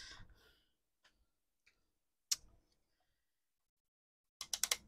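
A few isolated light clicks and taps on a workbench. Near the end comes a quick run of five or six sharp clicks as a handheld digital multimeter's rotary selector switch is turned through its detents.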